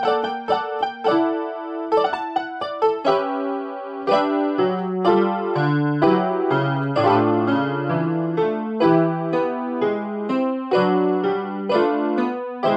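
Background music played on a Casio electronic keyboard in a piano voice: a melody over chords, with lower bass notes coming in about four seconds in.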